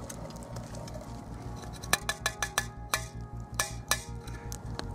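Water poured from a stainless steel flask into an enamel coffee percolator pot, then a quick irregular run of sharp metallic clinks, each with a short ring, as the steel flask and enamel pot knock together.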